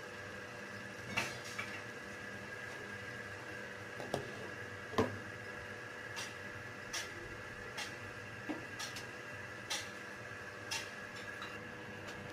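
Scattered light clicks and knocks of cookware, such as a pan and its glass lid being handled on the stove. They come irregularly about once a second over a steady kitchen hum.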